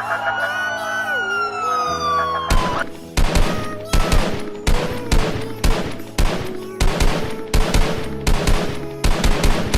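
Dramatic soundtrack with wailing, siren-like sliding tones. About two and a half seconds in, these give way to rapid clusters of sharp, gunfire-like bangs with deep thumps.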